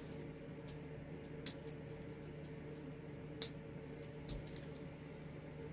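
Small clicks of fingers and nails working at a Swiss Army knife's slot, trying to pry out its stuck tweezers: two sharp clicks and a soft knock over a steady low hum.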